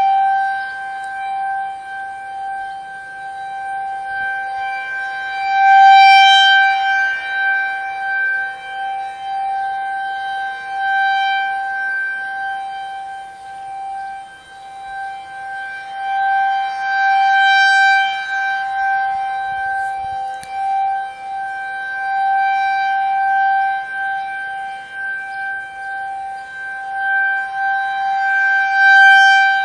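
Outdoor tornado warning siren sounding a steady, unwavering tone for a siren test. Its loudness swells and fades about every eleven to twelve seconds as the rotating horn sweeps toward and away from the listener.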